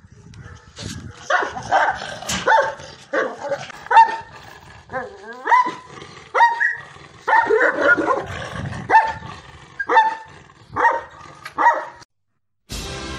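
Caucasian Shepherd Dog barking in a long string of short barks, about two a second: guard-dog aggression. The barking stops shortly before the end, and choral music begins.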